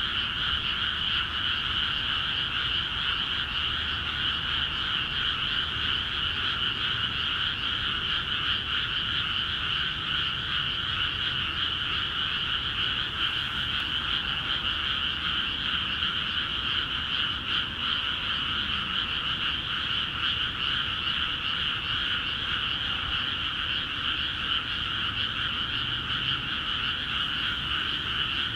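A dense chorus of many frogs calling at once in freshly flooded rice paddies, a continuous, even din of overlapping calls. It is the frogs' vigorous breeding-season calling that starts once water is let into the fields.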